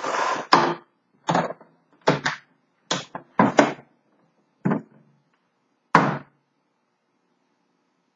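A typewriter's hard carrying case being handled: a short scraping rustle, then about six separate knocks and thunks over the next five seconds as the case and its lid are moved and set down.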